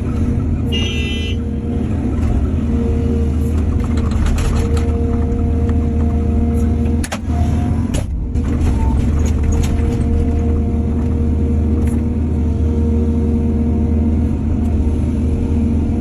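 Heavy diesel engine of an excavator running steadily, with a steady whine over the low engine drone. A short high tone sounds about a second in, and the sound breaks briefly around halfway.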